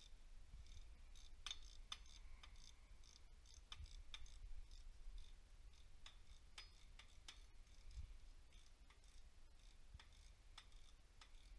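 Faint, irregular clicking of a socket ratchet working a bolt loose on a diesel injection pump, with small metal tool clinks.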